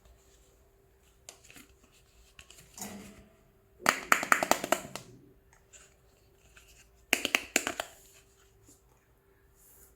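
Small hard plastic toy pieces clicking and clattering as they are handled. The clatter comes in two quick bursts of rapid clicks, about four seconds in and again about seven seconds in, with light scattered taps between them. A faint steady hum runs underneath.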